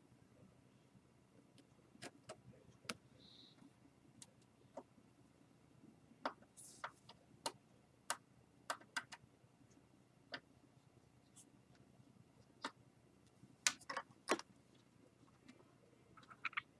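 Faint, irregular small clicks and ticks of a screwdriver and plastic parts being handled as screws are driven back into a laptop's screen assembly, a dozen or so scattered through with a cluster near the end.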